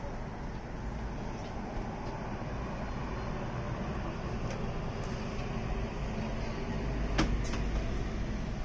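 Steady background rumble and hiss, with two sharp knocks close together about seven seconds in.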